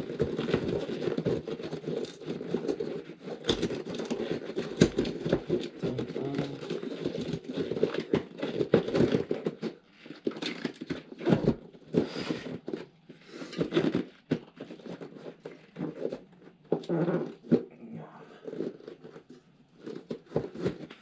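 Hands working a tubeless mountain bike tyre and its sealant mess: steady crinkling and rustling for the first half, then separate scrapes, clicks and knocks.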